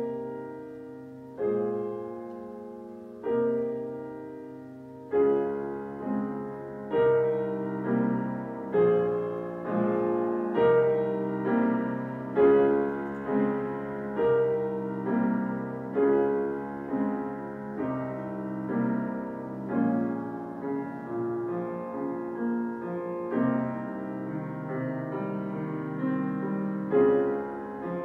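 Solo grand piano playing a slow, gentle piece: single chords struck about every two seconds and left to ring, then from about five seconds in a fuller, flowing passage with notes struck more often.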